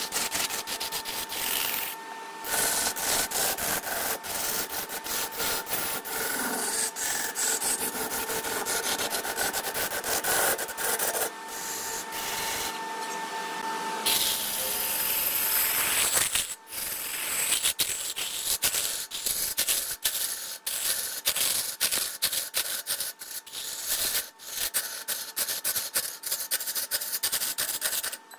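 Wood being worked on a lathe: a continuous dense scraping against the spinning wood, with a faint steady hum from the machine. The sound drops out briefly a few times.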